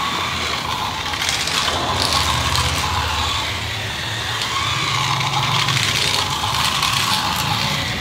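Small electric motor and plastic gears of a battery-powered toy Thomas train whirring as it runs along plastic roller-coaster track, its whine rising and falling in pitch as the load changes.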